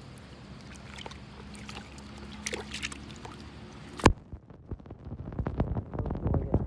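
Water trickling and sloshing with small splashes as the catch of small bream is handled, over a low steady hum. About four seconds in there is a sharp click, and then music with a throbbing beat starts.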